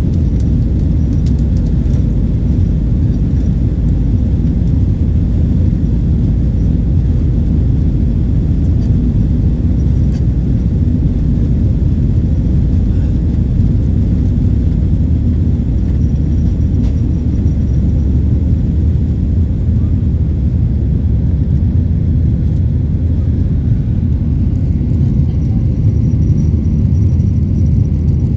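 Jet airliner engines rumbling steadily at taxi power, a deep even rumble with a faint high whine coming in now and then.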